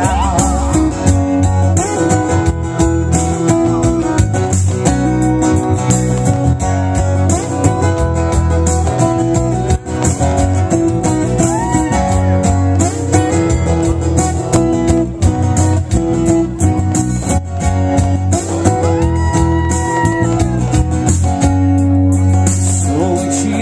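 Band playing an instrumental break: a guitar lead with bent notes over bass and drums.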